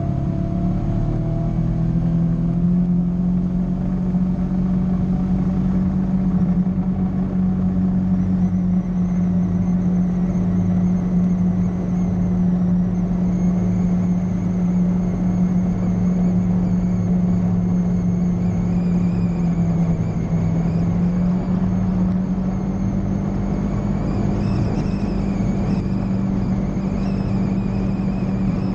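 Polaris RZR 900 side-by-side's parallel-twin engine running at a steady cruising speed on a flat trail, its pitch rising slightly about a second in. A faint high whine joins from about eight seconds in.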